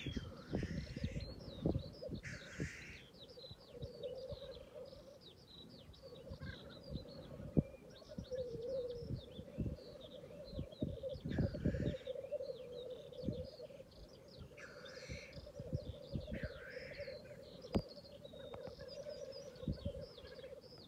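Black grouse displaying at a lek: the males' continuous bubbling rookooing chorus, broken every few seconds by short hissing sneeze calls. Many brief high chirps run over it, and wind thumps the microphone.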